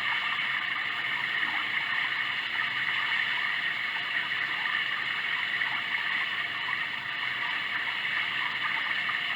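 Sound Oasis ambient sound machine playing a steady, rushing, water-like noise.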